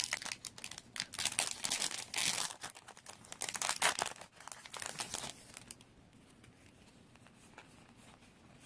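A foil Yu-Gi-Oh booster pack wrapper being torn open and crinkled in the hands, a dense crackling rustle that stops about five and a half seconds in, leaving only faint handling.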